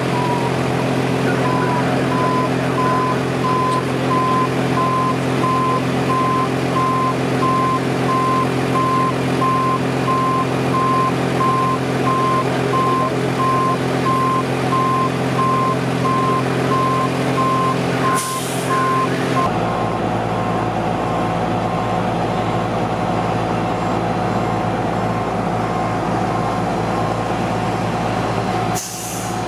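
A heavy truck's back-up alarm beeping steadily over the low running of a large vehicle engine. About two-thirds of the way through the beeping stops, leaving a different steady engine drone.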